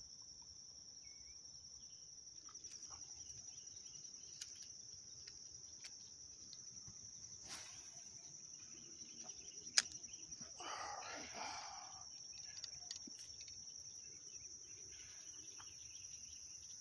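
A steady, high-pitched insect trill, with one sharp click about ten seconds in and a brief scratchy noise just after it.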